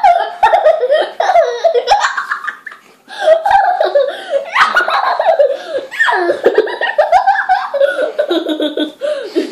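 A young child laughing hard while being tickled with a feather, in two fits with a short break about two and a half seconds in.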